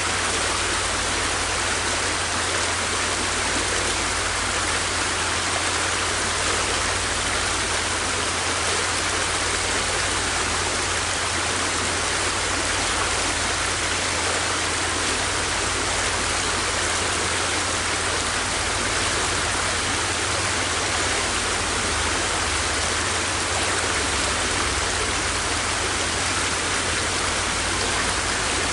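Flowing river water: a steady, even rush with no breaks or separate splashes.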